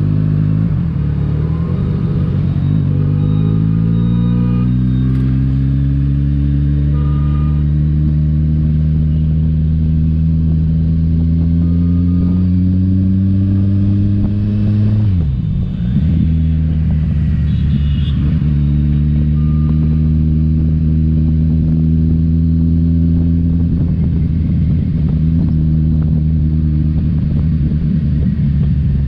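Kawasaki Ninja 1000's inline-four engine with an aftermarket exhaust, under way: the revs climb slowly and evenly for about fifteen seconds, drop sharply, then hold steady at a cruising pitch.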